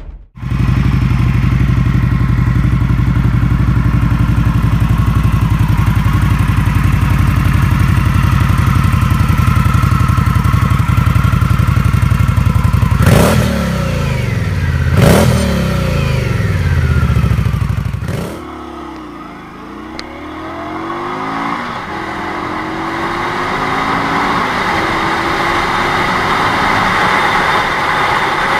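Indian Scout V-twin cruiser idling steadily through straight-through twin exhausts, then blipped twice with sharp revs that fall back to idle. After a cut, an Indian cruiser is heard on the move, its engine note climbing again and again as it pulls through the gears, growing louder.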